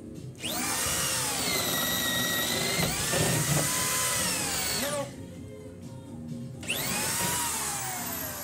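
Power drill turning a long auger bit, boring through wooden wall studs. The motor whines up to speed, runs steadily for about four and a half seconds and winds down, then runs again in a second, shorter burst near the end.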